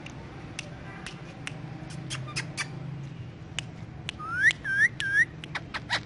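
Indian ringneck parakeet making sharp clicks, then three loud rising whistles about four seconds in, followed by a quick run of short clicking chirps near the end.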